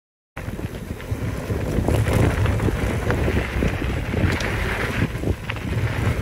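Mountain bike rolling fast down a dirt trail, heard from a camera on the bike: wind buffets the microphone in a steady low rumble, with tyre noise and many small rattles and knocks from the bike over the rough ground. It starts suddenly just after the beginning.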